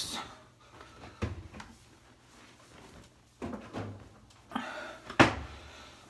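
Freshly washed laundry being stuffed by hand into a Speed Queen tumble dryer's drum: cloth rustling and soft thuds, with a sharp knock about five seconds in.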